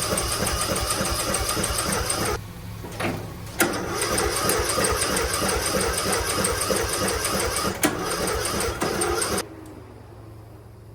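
A 13-horsepower lawn mower engine being cranked by its electric starter without catching. It cranks in two long spells with a short break about two and a half seconds in, then cuts off about nine and a half seconds in.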